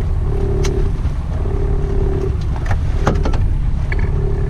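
Evinrude 90 outboard motor running steadily at low speed, with a hum that swells and fades about once a second over the constant low rumble. A few short knocks are scattered through it.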